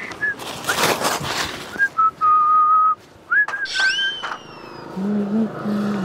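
A person whistling a short tune: a few clear notes held level, with a louder note that slides up about two-thirds of the way through. A brief rustle comes about a second in.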